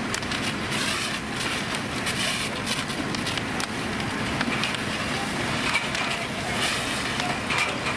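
Burning wood-frame house crackling and snapping in many quick, irregular pops over a steady rumbling background.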